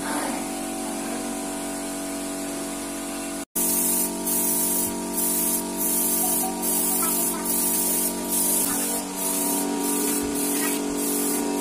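Steady machine hum; after a brief cut about three and a half seconds in, a paint spray gun hisses in short bursts about once a second as black paint is sprayed over taped lines on a wall.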